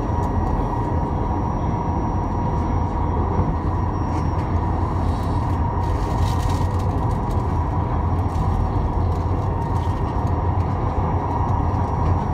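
Seoul Ui-Sinseol Line UL000-series two-car light-rail train running at speed through a tunnel: a steady rumble of steel wheels on rail with a thin, steady high whine over it. A brief hiss rises over it about six seconds in.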